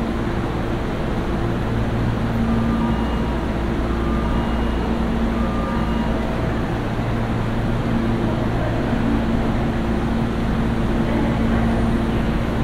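Steady hum of a Hankyu electric train standing at the platform, its onboard equipment idling, with several faint steady tones that come and go.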